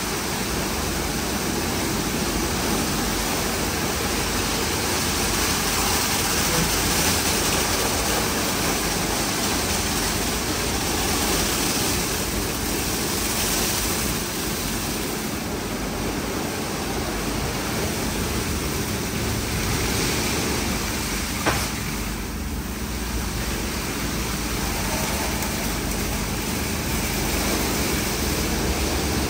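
WashTec SoftCare2Pro rollover car wash at work on a car: a steady rush of spraying water and washing machinery, with a single sharp knock about 21 seconds in.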